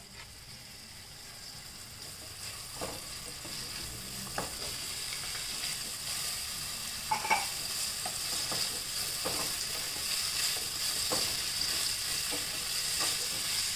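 Chopped vegetables sizzling in hot oil in a nonstick pan, stirred with a wooden spatula that now and then knocks and scrapes against the pan. The sizzle grows steadily louder.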